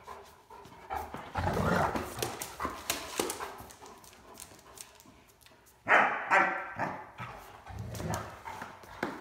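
Two Great Danes playing rough, with scuffling and knocks, and two loud barks in quick succession about six seconds in.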